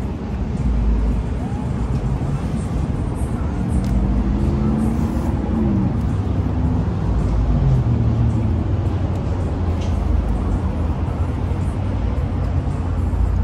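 Road traffic running steadily, with a heavy vehicle's engine note rising and falling a few seconds in.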